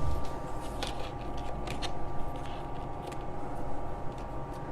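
Sewing machine stitching slowly across nylon webbing to fix a buckle in place: a steady motor hum with scattered, irregular needle clicks.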